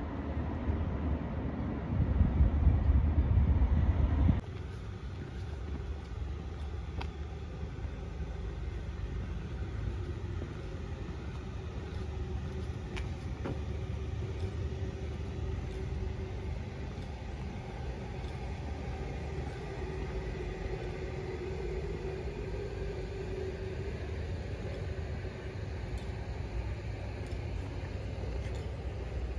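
Steady low rumble of a moving road vehicle. It is louder for about the first four seconds, then drops suddenly to a quieter, even rumble with a faint hum.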